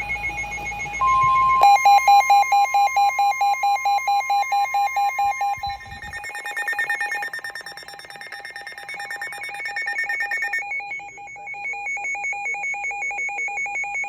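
Several NOAA weather radios sounding their alert alarms at once: rapid pulsing electronic beeps at a few different pitches, announcing an incoming Special Marine Warning. A steady tone near 1 kHz, the NOAA warning alarm tone, runs under the beeps for about four seconds from about a second in. The beeping gets louder about a second and a half in.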